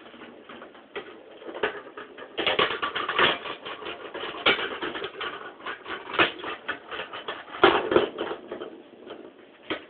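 Small plastic balls clattering down the zigzag ramps of a toddler's ball-drop tower toy, in several runs of quick clicks and knocks.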